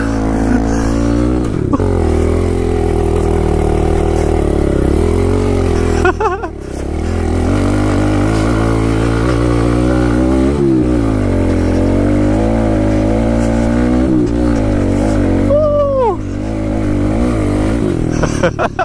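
Kawasaki KLX110L pit bike's small single-cylinder four-stroke engine running under throttle while it is ridden, the revs rising and falling. The engine briefly backs off about six seconds in, and its pitch drops again near sixteen seconds.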